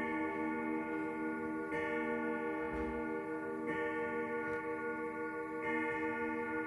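1981 grandfather clock striking the hour, one ringing strike about every two seconds, each note ringing on into the next, four strikes in all, with the pendulum ticking underneath.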